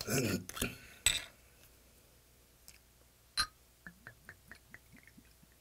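A soju bottle's screw cap is twisted open with a short crackle. A bit later the green glass bottle clinks against a shot glass once, and soju glugs from the bottle neck into the glass in a quick run of about ten gurgles lasting a second and a half.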